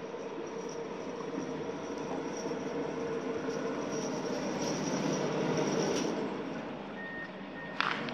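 Steady mechanical running noise of a vehicle, swelling louder about five seconds in and easing off, with a click and a thin steady high tone near the end.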